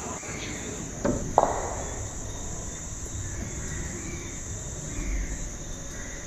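Two sharp clicks about a second in, a pool cue tip striking the cue ball and then the ball knocking against another ball, over a steady high chirring of insects.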